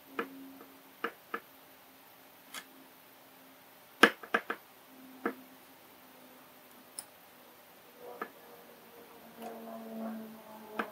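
Metal tweezers tapping and clicking on a tabletop while picking up tiny surface-mount LEDs: about ten sharp, separate clicks at irregular intervals, the loudest about four seconds in.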